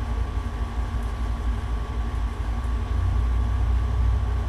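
A steady low rumble with a faint constant whine above it, the hum of running room machinery such as an air conditioner.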